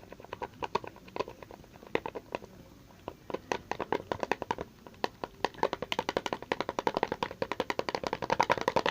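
A stirring utensil clicking and tapping against a bowl as a thick glue mixture is stirred. The taps come irregularly at first, then speed up to a quick run of several a second over the second half.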